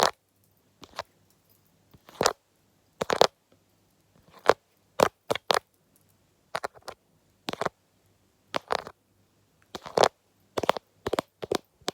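ASMR tapping and scratching: short, irregular scratchy taps, one every half second to a second, several in quick succession near the end.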